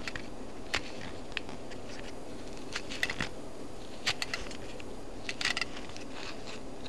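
Scattered small metal clicks and light scrapes from handling a Zippo lighter insert while the flint spring screw is turned in.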